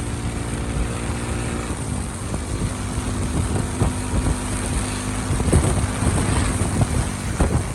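Motorcycle engine running while the bike is ridden; its note steps down about two seconds in and then holds steady.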